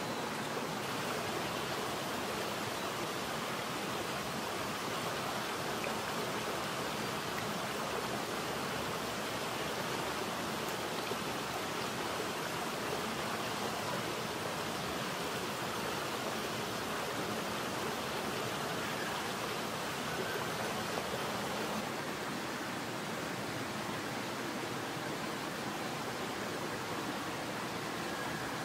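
Steady rush of a mountain headwater stream, a constant even wash of running water.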